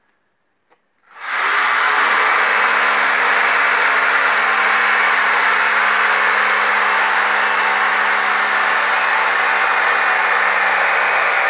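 A motor-driven machine is switched on about a second in, spins up within a fraction of a second and then runs steadily and loudly: a steady hum under a strong rushing noise.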